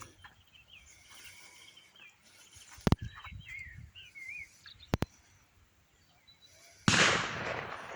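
Shotgun shots on a clay pigeon range: two sharp cracks around three and five seconds in, then a louder shot near the end that rings away in a long echo. Birds chirp in between.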